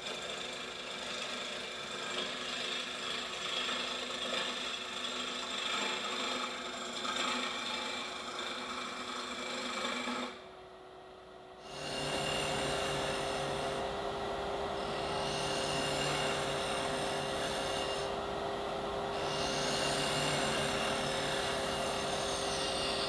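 Wood-turning on an Oliver 18-inch Classic Lathe: a gouge cutting a spinning wood blank, a steady scraping hiss of shavings over the lathe's even hum. About ten seconds in it drops away for a second or so, then the cutting resumes with a different hum.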